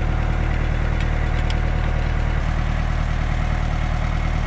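Kubota tractor's diesel engine idling steadily, with a few faint metallic clicks.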